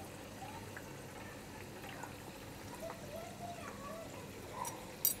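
Spinach vadas deep-frying in oil in a kadhai on a medium-low flame, a faint steady sizzle and bubbling. A short click comes near the end.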